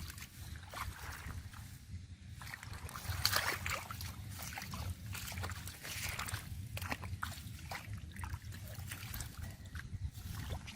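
Shallow muddy water sloshing and splashing as hands work through it, with irregular small splashes and drips over a steady low rumble.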